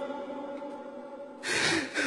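The echoing tail of a man's Quran recitation fades away in a large hall. About one and a half seconds in comes a loud, breathy, gasping intake of breath.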